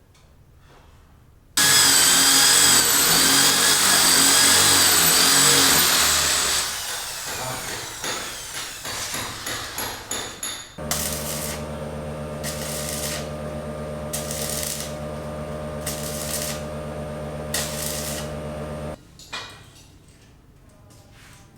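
Power tools at work: a loud cutting or grinding noise starts abruptly, runs for about five seconds and dies away. A motor then runs steadily for about eight seconds with regular bursts of grinding roughly every second and a half, and cuts off suddenly.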